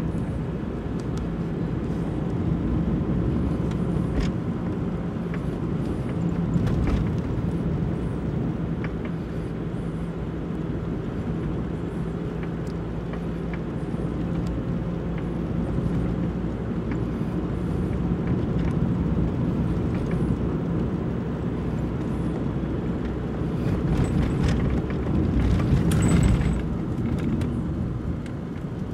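Car driving along a narrow patched asphalt road, heard from inside the car: a steady engine hum with tyre and road noise and scattered small knocks. A louder rushing swell comes near the end.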